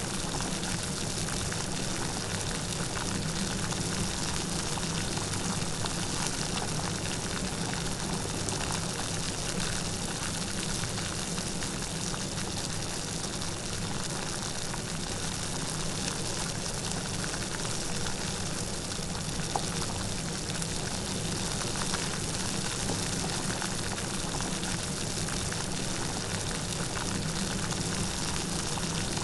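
Light rain falling steadily, a continuous patter of drops with no thunder.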